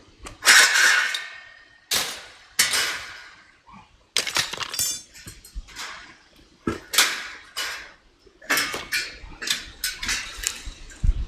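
Steel gate frame being knocked and worked on: a dozen or so irregular metal clanks and bangs, some ringing briefly.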